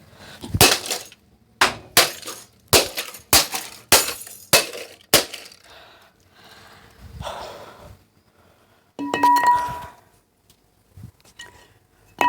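Hard blows with a stick smashing a plastic device, about eight sharp hits in quick succession with cracking and breaking, then a clattering, ringing clink of broken pieces about nine seconds in.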